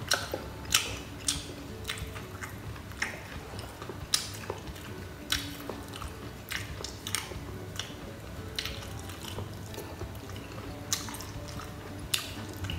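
Close-up chewing of crunchy pickled eggplant (cà pháo): wet mouth sounds broken by sharp, crisp crunches at irregular intervals of about a second.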